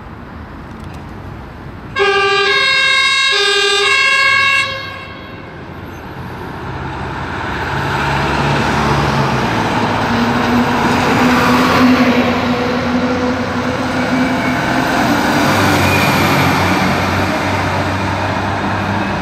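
Fire brigade vehicle's two-tone siren sounds in a short blast of about two and a half seconds, switching back and forth between two pitches. Then the heavy diesel engines of fire trucks rumble past, the noise building up to a peak about halfway through and staying loud.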